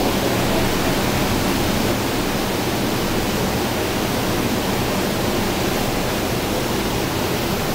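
Steady rushing noise with no breaks or strokes, the constant background roar inside a hydroelectric powerhouse.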